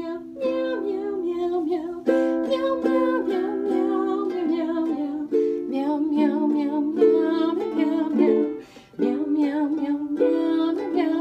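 Ukulele strummed steadily in a small room, with a voice singing along over the chords. The music breaks off briefly about nine seconds in, then picks up again.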